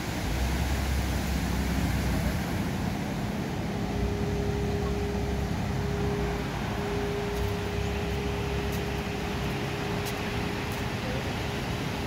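Steady wash of ocean surf breaking on the beach, with low wind rumble on the microphone that is strongest in the first couple of seconds. A steady hum comes in about four seconds in and drops away near the end.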